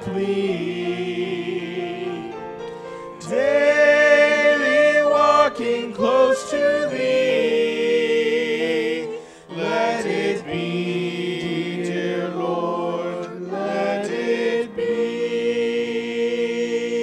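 A small group of singers performing a slow worship song, holding long notes, with brief breaks between phrases.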